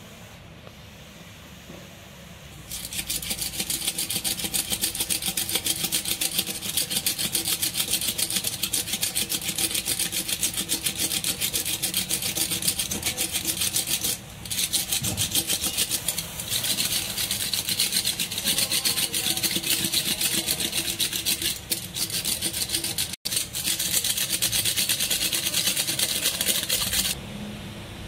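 A tyre-patch stitcher worked fast over the edge of a plug-patch on the tyre's inner liner, pressing the patch down. It makes a loud, fast rasping rattle that starts a few seconds in, breaks off briefly a few times, and stops just before the end.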